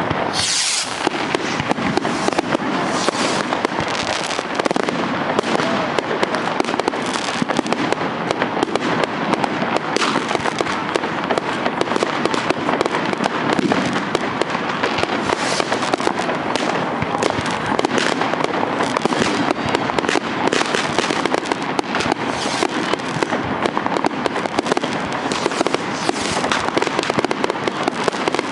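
Many fireworks going off at once: a dense, continuous crackle of bangs and pops, with a loud bang just after the start and another about ten seconds in.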